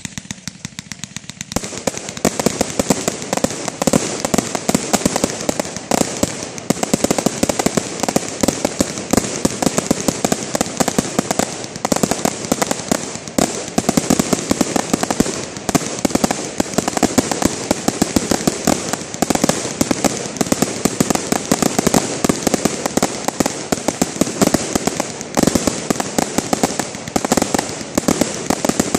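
Fireworks firing shot after shot from one spot on the ground: a single bang, then about a second and a half later a rapid, unbroken string of pops and reports that keeps up without a pause.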